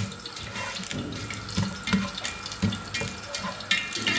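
Sliced onions sizzling and crackling in hot oil in a pot, stirred with a spatula, at the start of browning.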